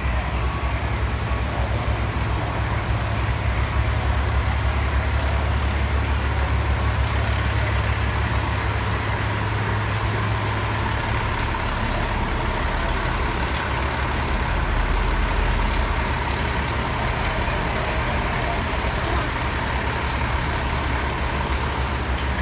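Heavy diesel engines of parked fire trucks idling, a steady low rumble that eases a little about halfway through.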